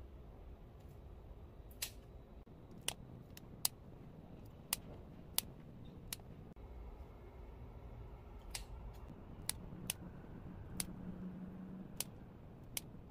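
Kitchen scissors snipping grilled pork belly into pieces, with a sharp click each time the blades close. There are about a dozen cuts at an uneven pace.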